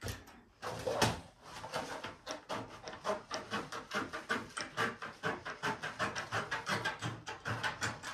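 Straight-cut aviation snips cutting through thin galvanized sheet steel: a steady run of crisp snips, about three a second, as the blades chew along the cut line.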